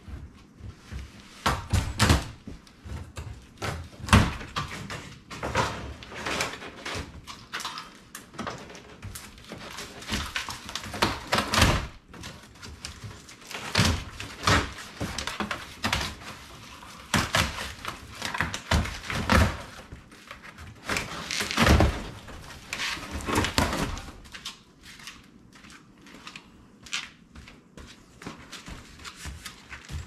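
A large cardboard shipping box being handled and opened by hand: irregular thumps, knocks and cardboard scraping and rustling as the end flaps are pulled open, quieter over the last few seconds.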